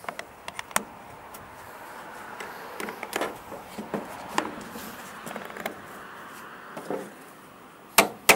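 Scattered light clicks and scraping of metal parts as a mower spring is forced into place by hand, with two sharp clacks near the end.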